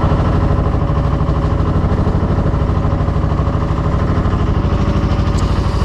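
Sailboat's inboard diesel engine running steadily while the boat motors along, with an even pulse.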